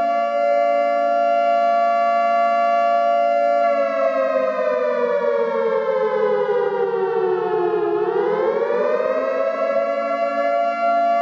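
Civil defense siren sounding a steady multi-tone wail. Its pitch slowly drops from about four seconds in, then climbs back up after about eight seconds and holds steady again.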